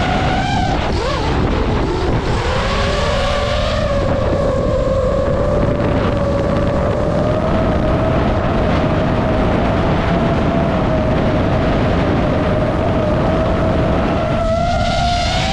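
DJI FPV drone's motors and propellers whining. The pitch dips and rises about a second in, holds steady, then shifts again near the end, over wind rushing across the microphone.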